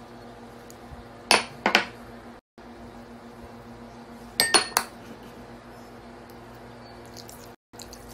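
A spoon clinking against a glass mixing bowl while spices are added: two sharp ringing clinks about a second and a half in, then a quick run of three more about four and a half seconds in. A steady low hum runs underneath.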